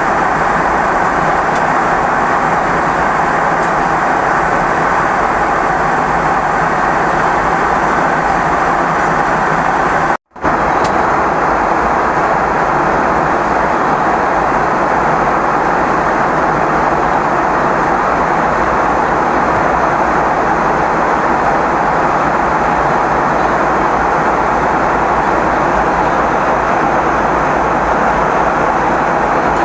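Steady roar of an aircraft cabin in flight, engine and airflow noise, cut off for a split second about ten seconds in.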